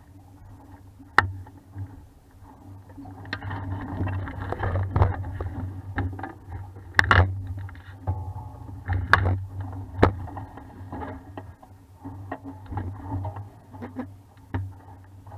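420 sailing dinghy under way: water washing along the hull over a steady low rumble, with several sharp knocks and clatters from the boat's hull and fittings.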